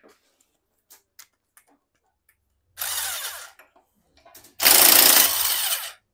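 Power impact wrench run in two short bursts to undo a bolt. The second burst is louder and longer, and a few light clicks of tool handling come before it.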